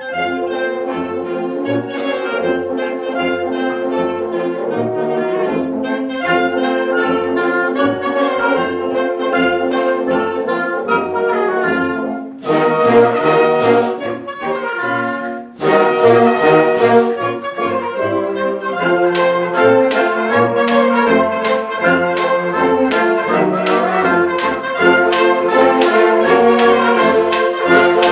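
Concert wind band playing live, brass and woodwinds together: held chords for about twelve seconds, then after a brief break a louder passage of short accented chords punctuated by sharp percussion strokes in a quick rhythm.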